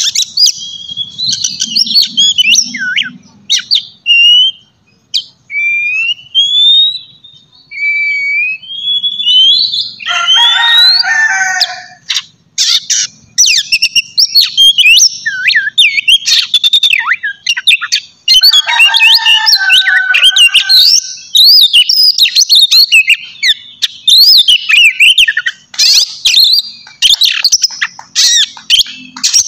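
Oriental magpie-robin (kacer) singing a loud, varied song of whistles and rising and falling glides. Slower separate phrases give way, about ten seconds in, to dense rapid runs with harsh chattering notes. It is the kind of song played to provoke captive kacer into singing.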